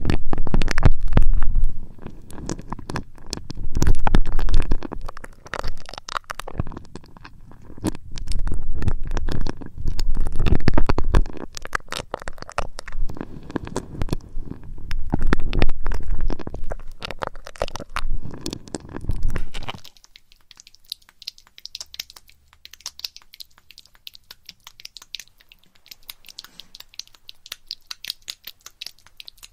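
Close-up ASMR trigger sounds made directly on the ears of a 3Dio binaural microphone: loud, deep rubbing and scratching full of crackles that stops suddenly about twenty seconds in. After that, quieter light crinkling and ticking.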